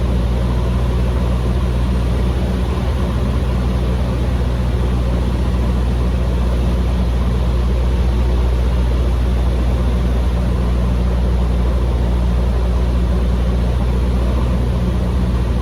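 Cessna 150M's four-cylinder Continental O-200 engine and propeller droning steadily in flight, heard inside the cockpit as a low, even hum.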